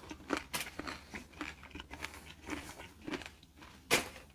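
A person chewing food close to the microphone: irregular wet mouth clicks and small crunches, with one louder crunch about four seconds in.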